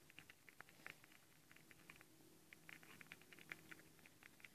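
Faint, irregular clicking and ticking of a thin plastic stirring stick against a small plastic cup as sticky glue is stirred, several light clicks a second.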